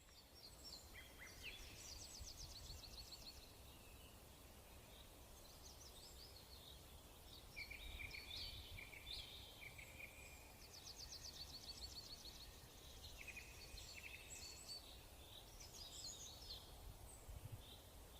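Faint songbirds singing and chirping, with several rapid high trills and short chirps, over a low background rumble.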